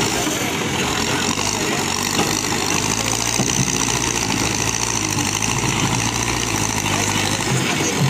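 Manitou TLB 740S backhoe loader's diesel engine running steadily while the machine works its front loader bucket into a pile of broken stone.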